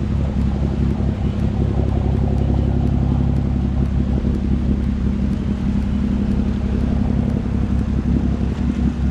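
Engine of a small cabin workboat running steadily as it passes close by, a low even drone.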